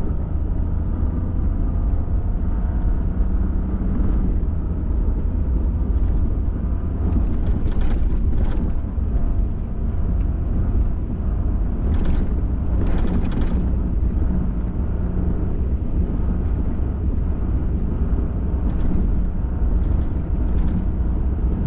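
Pickup truck driving along an off-road trail: a steady deep rumble of engine and tyres on the rough surface. Several brief knocks and rattles come through around the middle and again near the end.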